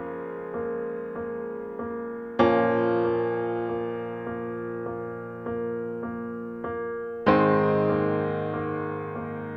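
Background piano music: a steady run of notes, one roughly every half second, each ringing on as it fades, with a louder chord struck twice, about two and a half and about seven seconds in.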